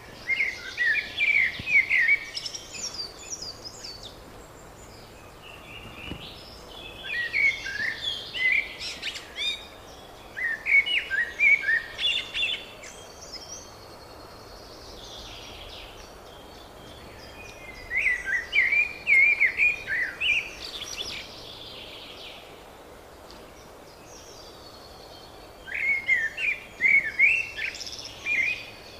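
Songbirds singing in spring: about five separate song phrases of two to three seconds each, quick repeated chirping notes and sweeps, with short gaps of steady outdoor background noise between them.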